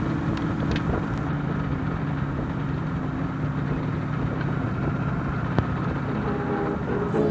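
IZh Jupiter-5 motorcycle's two-stroke twin engine running steadily while riding, with road and wind noise.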